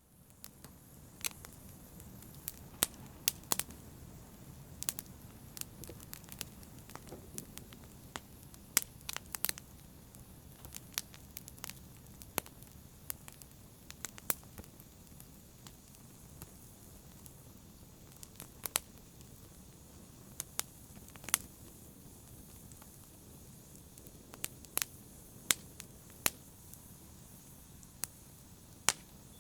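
Fire crackling: sharp, irregular pops and snaps, several a second at times, over a low steady hiss.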